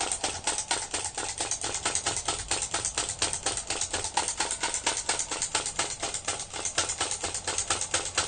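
Gakken vacuum (flame-licker) model engine running on its alcohol-lamp flame, its piston and valve making a fast, even clicking of about seven clicks a second.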